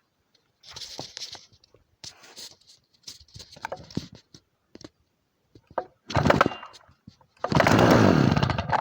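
Sachs-Dolmar 102 chainsaw's two-stroke engine being pull-started cold on full choke: several pulls of the recoil starter rope, then the engine fires, runs for about a second with its pitch falling, and dies, the usual sign that it has caught on choke and needs the choke pushed in.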